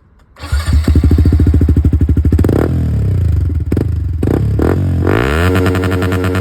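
Yamaha R15M's single-cylinder engine heard through its exhaust, coming in loud about half a second in and being revved. The pitch falls, there are a few short blips of throttle, and near the end it is revved up and held higher.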